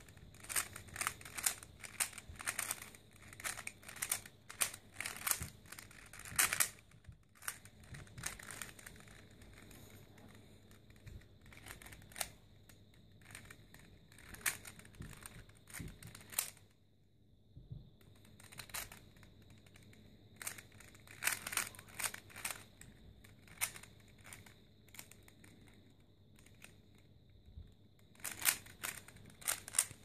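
A plastic Rubik's cube being turned by hand: quick runs of clicks as its layers are twisted, with short pauses between runs.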